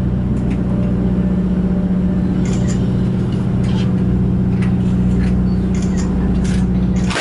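A river cruise boat's engine running with a steady, low, unchanging drone, heard inside the cabin, with a few faint light clicks on top.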